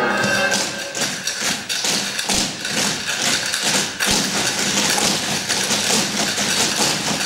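A troupe of dancers' feet stamping and stepping together on a stage floor, a quick, uneven run of thuds and taps.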